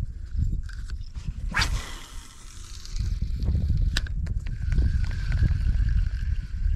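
Fishing cast and retrieve with a spinning rod: a swish about a second and a half in, a sharp click around four seconds, then the spinning reel whirring steadily as line is reeled in. Wind rumbles on the microphone.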